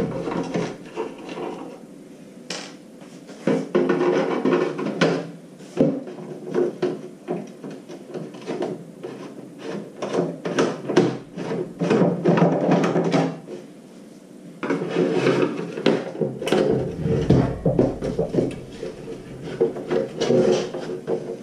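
Screwdriver clicking and scraping in the screws of a Mr. Heater Buddy heater's plastic housing, with irregular rubs and knocks as the heater is turned and shifted on a wooden tabletop.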